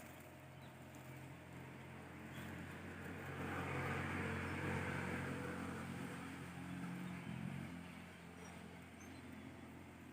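A road vehicle passing by: a low hum with a rush of noise that swells to a peak about four to five seconds in, then fades away.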